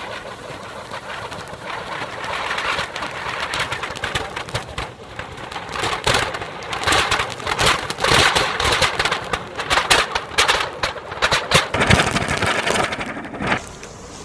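Three anar fountain firecrackers mounted on a running table fan's blades, spraying sparks with a steady hiss. Dense crackling joins about halfway through and dies down near the end.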